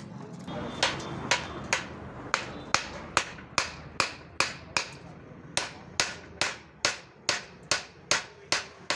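Hammer blows striking metal in a steady rhythm, about two and a half a second, each with a short ringing tail, with a brief pause about five seconds in.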